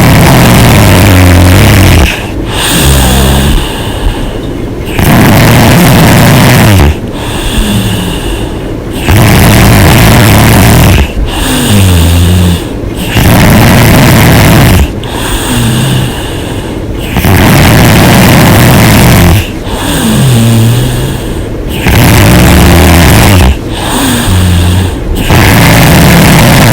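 A woman snoring loudly and hard with her mouth open. Each breath brings a long, harsh snore of about two seconds followed by a shorter one, in an even rhythm of about one breath every four and a half seconds.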